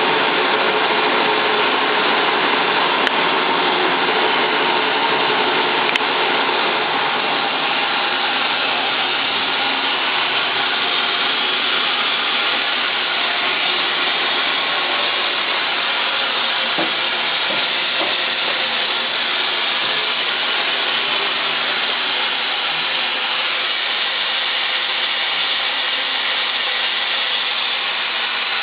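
TriState pneumatic upcut saw's motor and 18-inch blade running steadily without cutting, a continuous mechanical running noise that eases slightly near the end.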